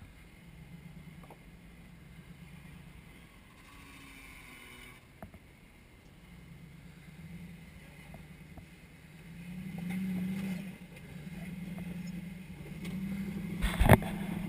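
Jeep engine running at low revs as it crawls over rock, heard from a distance, swelling about ten seconds in as throttle is added. A sharp knock near the end.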